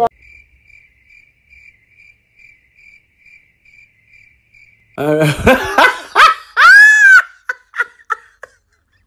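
Faint cricket-chirp sound effect, about three chirps a second, the comic awkward-silence cue. About five seconds in it gives way to a loud voice with a big swooping rise and fall in pitch.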